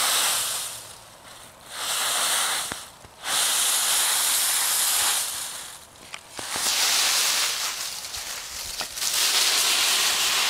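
Dry fallen leaves rustling and crunching as a small dog leaps and burrows through a leaf pile, in repeated loud bursts with brief pauses between them.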